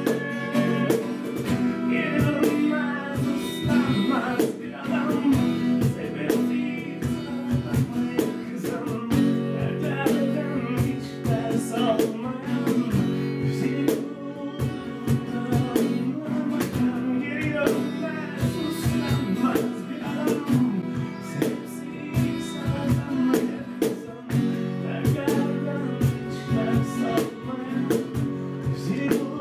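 Live acoustic trio playing a song: acoustic guitar, a bowed violin melody, and a cajón beating out the rhythm.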